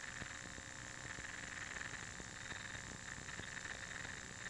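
Faint crackling static from a hobby electronics kit's audio output, a hiss that swells and fades with scattered faint ticks.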